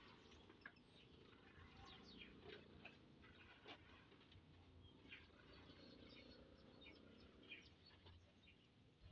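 Near silence, with faint scattered ticks and short chirps in the background.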